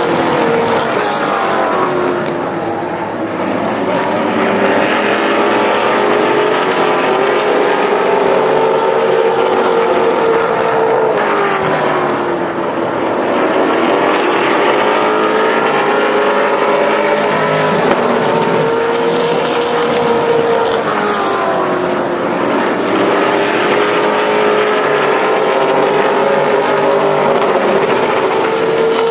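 Several Pro Late Model stock cars' V8 engines at race speed, a continuous loud drone whose pitch drops off and climbs back up about every ten seconds as the cars lift for the corners and power down the straights.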